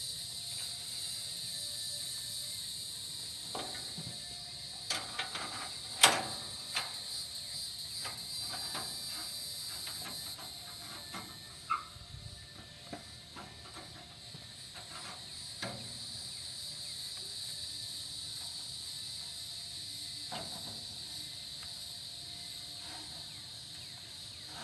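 Steady high chirring of insects, over scattered light knocks and clanks as a band sawmill blade is handled and fitted onto the mill's wheels; the sharpest knock comes about six seconds in.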